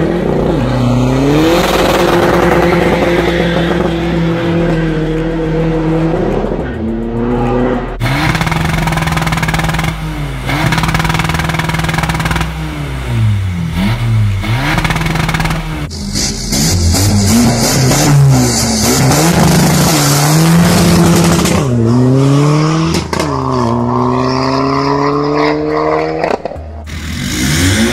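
Tuned VW-group PD TDI diesel engines revving through their exhausts: the note climbs sharply with each blip of the throttle and drops back to idle, over and over. The sound switches abruptly to a different car about eight and sixteen seconds in. Near the end comes a long rev climbing in steps.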